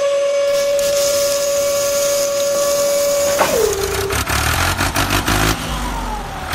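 Toy tipper trailer's tipping motor whining at a steady pitch as the bed rises, then dropping in pitch and stopping a little past halfway. Sand sliding out of the tipped bed hisses over it.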